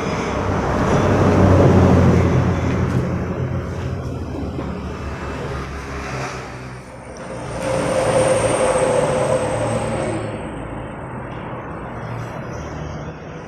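Road traffic passing close by: engines and tyre noise swell and fade twice, loudest about two seconds in and again around eight to nine seconds in.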